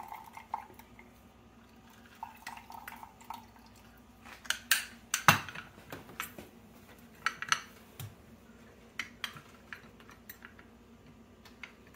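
Scattered clicks and clinks of a handheld metal lemon squeezer and an orange utensil knocking against a small stainless-steel saucepan as a lemon is pressed into melted butter, with the loudest knock about five seconds in.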